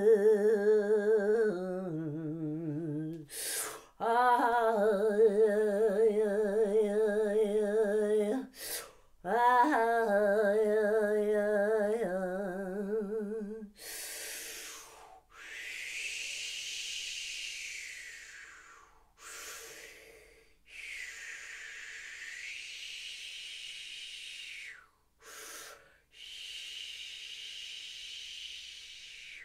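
A woman's voice singing long wordless tones with a wavering vibrato in three held phrases, then a series of long hissing breaths.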